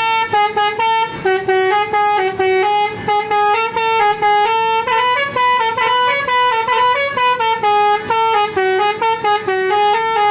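Basuri telolet bus horn, a set of air horns playing a fast tune of short notes that step up and down in pitch.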